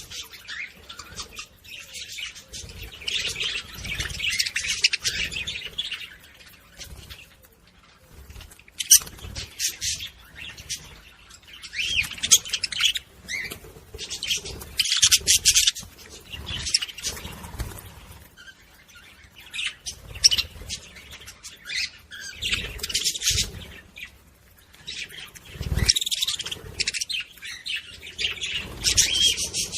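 Budgerigars chattering and warbling in repeated bouts of rapid high chirps, with a few low thumps.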